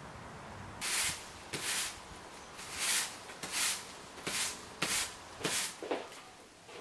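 A broom sweeping brick paving in a series of short brushing strokes, roughly one every half second to second, starting about a second in.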